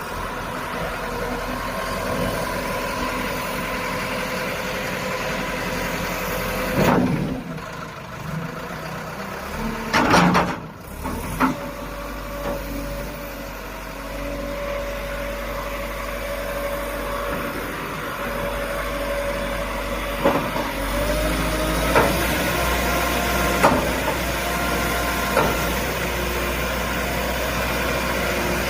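Backhoe loader's diesel engine running steadily, with several sharp knocks and clanks from the machine and one brief rise in engine pitch about two-thirds of the way through.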